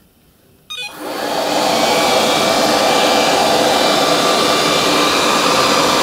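ILIFE V5 robot vacuum starting up: a brief electronic chirp just under a second in, then its suction fan spins up over about a second and runs with a steady whirring hum.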